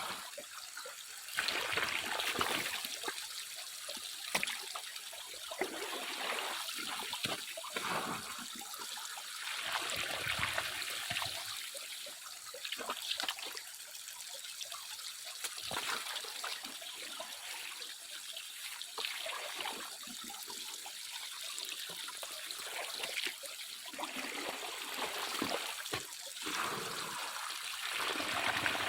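Water trickling and splashing, rising and falling in irregular surges every second or so.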